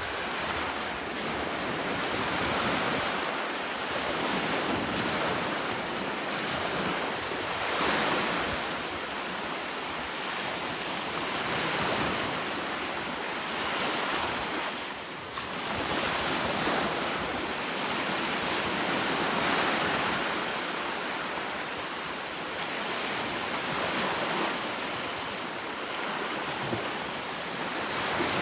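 Sea waves on a shore: a continuous rush of surf that swells and eases every few seconds.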